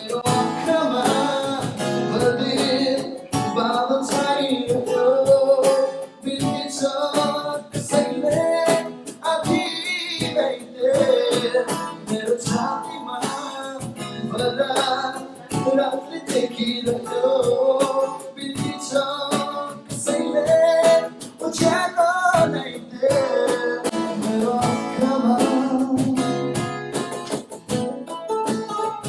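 Acoustic guitar strummed in a steady rhythm under a wavering melody line, played live by a small unplugged band.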